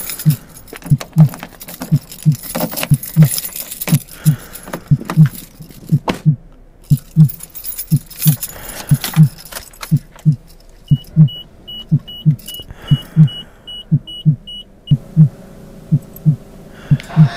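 Sound-art collage over a steady heartbeat thumping all along. Car keys jangle during the first several seconds. From about 11 to 15 seconds a rapid, evenly repeated high electronic beep sounds.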